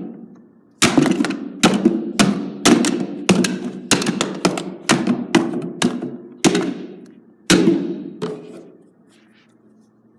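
A lacrosse stick striking a small plastic toy hairdryer again and again: a quick, uneven series of over a dozen hard knocks, each with a short ringing tail, stopping about eight seconds in.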